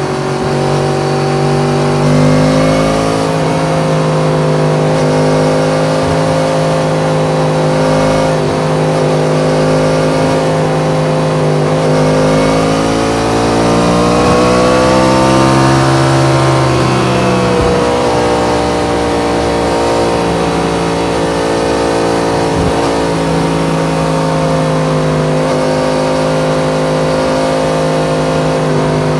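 Yamaha MT-10's crossplane inline-four engine running at steady highway speed. About halfway through the engine note climbs for a few seconds, then drops back and settles.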